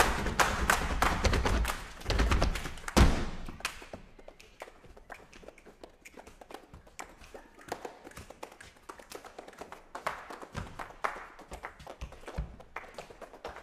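Djembe hand drum beaten with the hands in a quick, steady rhythm, ending with a heavy stroke about three seconds in. After that come scattered light taps and knocks.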